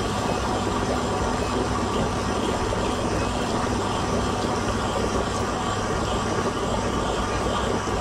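Whirlpool bathtub running, its jets churning the water while the filler spout pours a stream in: a steady rushing with a low hum underneath.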